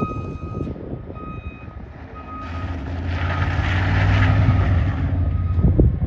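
A vehicle's reversing alarm beeping steadily about once a second. From about two and a half to five seconds in, a heavy vehicle passes close by, its engine and tyres on the slushy road growing loud, then fading, with a few low thumps near the end.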